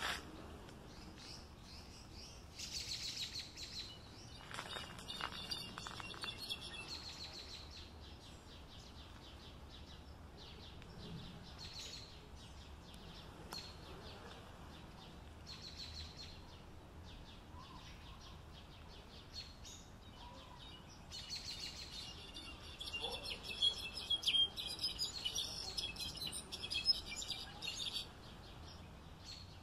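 Songbird singing: two long bouts of rapid, high, jumbled twittering, one a few seconds in and another through most of the last third, with short single chirps between them over a faint steady background hiss.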